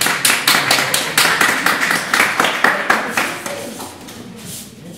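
Audience applauding: dense, uneven clapping that dies away near the end.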